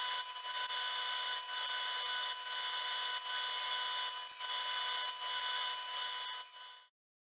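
Table saw running with a steady high whine and hiss, with faint knocks about once a second as wood strips are handled on its crosscut sled. It cuts off abruptly near the end.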